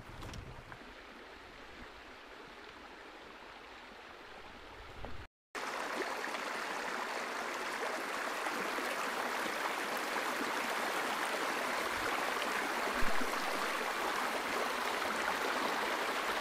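A shallow rocky stream: water running steadily over stones. It is faint for the first few seconds, then much louder and closer after about five seconds, with one brief knock a few seconds before the end.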